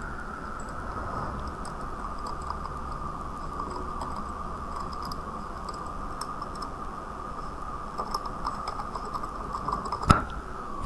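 Computer keyboard keys tapped in irregular keystrokes as an email address is typed, over a steady high-pitched background whine. One louder click comes near the end.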